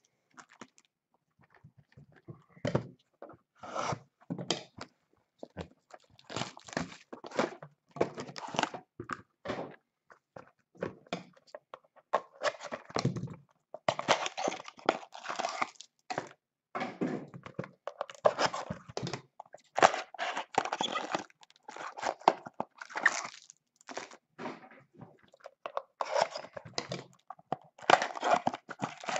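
Shiny trading-card pack wrappers being torn open and crinkled by hands in nitrile gloves, with cards sliding against one another: a long run of irregular crackling rustles.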